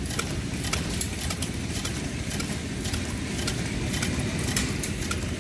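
Scale-model multi-cylinder gas engine running steadily, nice and quiet, at an even speed, with light clicking from its moving parts over a low hum.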